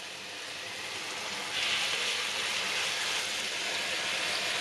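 Vegetable fritter (bakwan) batter sizzling in hot frying oil as spoonfuls are dropped into the wok; the sizzle grows louder and brighter about a second and a half in as more batter goes in.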